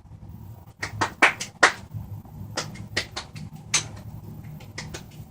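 An irregular series of sharp clicks and knocks, about fifteen, over a faint low hum.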